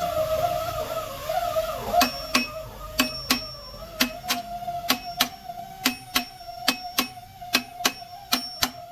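Background music: a sustained, slightly wavering tone, joined about two seconds in by a steady beat of sharp, ringing percussive strikes.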